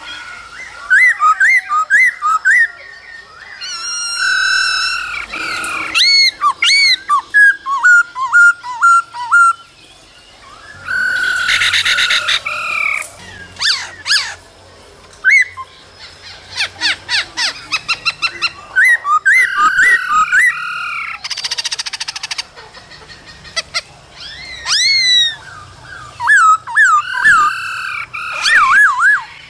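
Male black-throated laughingthrush singing a loud, varied song of whistled notes, rising and falling glides and quick rattling trills, in phrases with short pauses between them.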